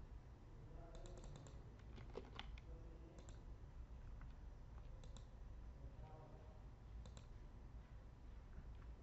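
Faint computer mouse and keyboard clicks. A quick run of clicks comes about a second in, then single clicks every second or two, over a steady low hum.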